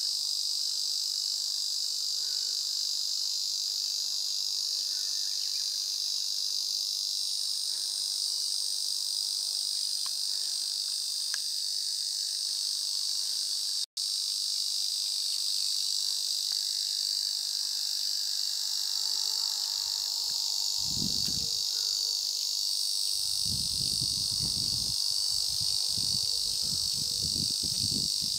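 Ezo cicadas (Lyristes japonicus) singing a continuous, steady buzzing drone. The sound cuts out for an instant about halfway through, and low rumbles come and go in the last third.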